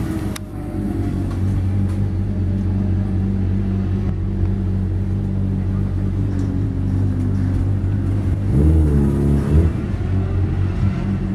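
Motorcycle engine running at a steady pitch, then revving up more loudly with a rising note about nine seconds in.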